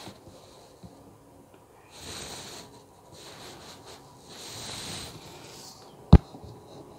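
Two soft breaths or sniffs close to the microphone, then a single sharp knock about six seconds in as a hand takes hold of the model locomotive's metal chassis.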